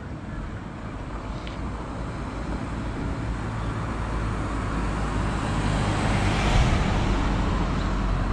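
Outdoor traffic noise: a passing vehicle's rumble swelling to a peak about six seconds in, then easing slightly.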